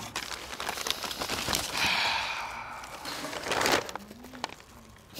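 Brown kraft packing paper and bubble wrap crinkling and rustling, with many small crackles, as a brake caliper is unwrapped by hand. It is busiest for the first few seconds, with one louder rustle near the end of that stretch, then it goes quieter.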